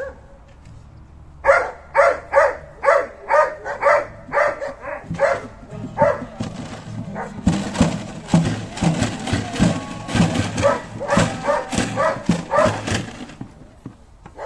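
Dog barking repeatedly, about two to three barks a second. About halfway through, a loud rapid clattering noise starts up alongside the barking and stops suddenly near the end.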